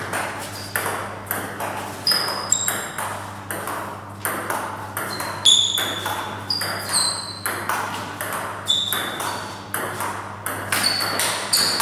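Table tennis rallies: sharp clicks of the ball off the bats and the table, many with a short ringing ping, coming several times a second over a steady low hum.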